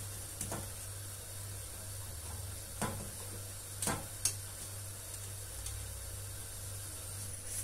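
Cubed eggplant being dropped by hand from a metal colander into a clay güveç pot: a few scattered soft knocks and clinks as pieces land and the colander touches the pot, over a steady low hum.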